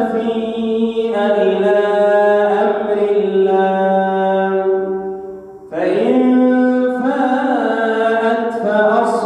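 A male reciter chanting the Quran in a melodic tajwid style, drawing out long held notes. He pauses for a breath about five and a half seconds in, then takes up the chant again.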